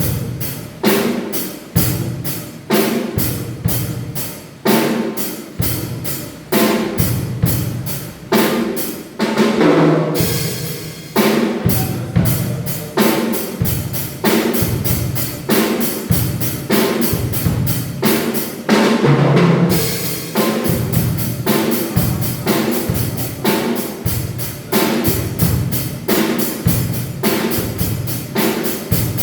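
Drum kit playing a steady beat of kick, snare and cymbals, with a change in the pattern about ten seconds in and again near twenty seconds.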